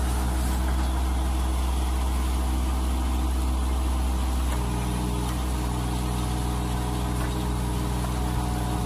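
Branson 2505H compact tractor's diesel engine running steadily while its backhoe attachment digs. The engine note shifts about halfway through.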